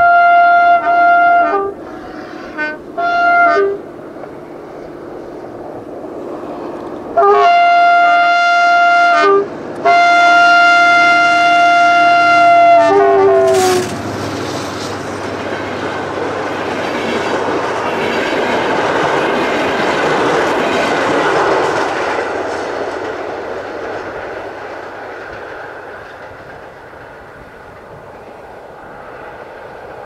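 Passenger train's locomotive horn: one long blast, two short toots, then two long blasts, the last one sliding down in pitch as the locomotive passes. Then the train's rumble and wheel clatter go by, swelling and then fading as it moves away.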